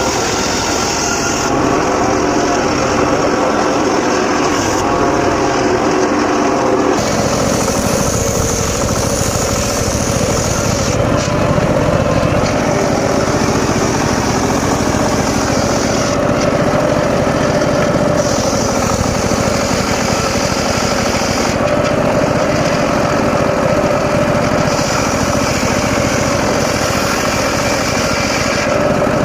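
Mobile circular sawmill running steadily, its round blade cutting a mahogany log. The drone is loud and continuous, with a change in its tone about seven seconds in and a high hiss that comes and goes every few seconds.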